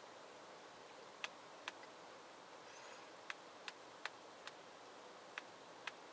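Sparse, irregular sharp ticks, about eight in six seconds, over a faint steady hiss.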